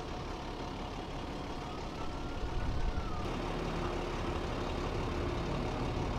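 A large truck engine idling with a steady low rumble.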